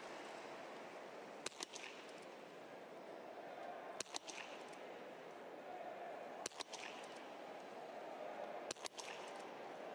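Biathlon small-bore .22 rifle fired in a prone series: four sharp cracks, each with a quick second click, spaced about two and a half seconds apart in a slow, deliberate rhythm, over a steady background hiss. The target display shows the shots hitting.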